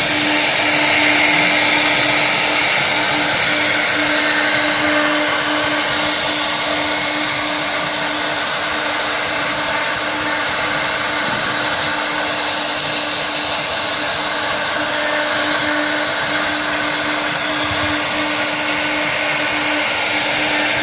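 Twin spindles of a double-head CNC router running steadily while routing grooves into a wood panel: even machine noise with a steady hum under it.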